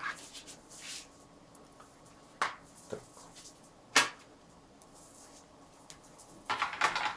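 Handling noise of a plastic watercolour palette being moved about and set down on the table: a few separate knocks, the sharpest about four seconds in, then a short rustle near the end.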